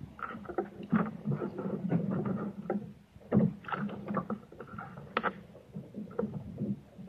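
Kayak and paddle being handled at the dock: irregular knocks, clunks and water sloshing as the paddler settles into the boat, with the loudest knocks about a second in and about three and a half seconds in.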